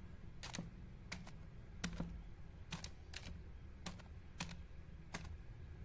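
Acer laptop keyboard being typed on: a string of separate, irregular key clicks, about two a second.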